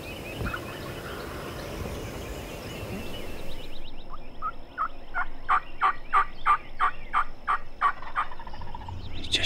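Wild turkey calling: a steady series of about fifteen short, evenly spaced notes, roughly three a second, starting about four seconds in.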